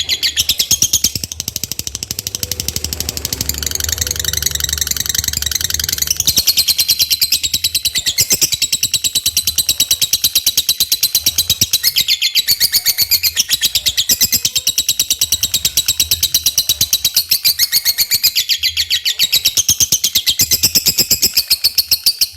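Lovebird singing a long, fast, unbroken chatter of sharp high chirps, repeating evenly with hardly a pause: the continuous "konslet" style of song that is played to provoke other lovebirds into singing.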